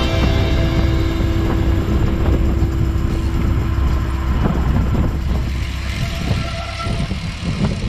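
A motor vehicle running steadily on the road, a loud low rumble with road noise.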